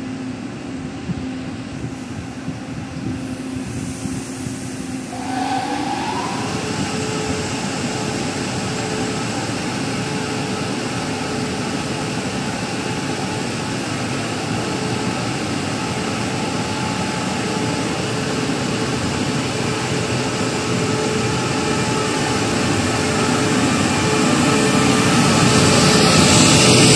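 Taiwan Railway E1000-series push-pull electric power car starting off from a station: a steady hum, then about five seconds in a short rising whine as it takes power, then a steady tone over running noise that grows louder as the power car draws past.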